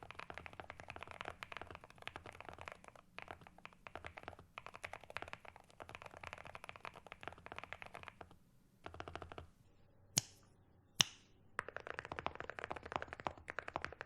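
Fast typing on a Monsgeek M1V3 mechanical keyboard with Akko Rosewood switches, a dense run of key clacks. After a short pause, two sharp single clicks with a ringing tail are heard about ten and eleven seconds in. Typing then resumes on Cerakeys ceramic keycaps.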